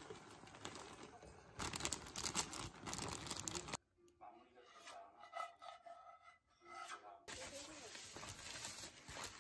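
Packaging crinkling and rustling: a plastic bag of grated Emmental crackles loudly as cheese is shaken out, then near the end a paper bakery bag rustles as bread is unwrapped.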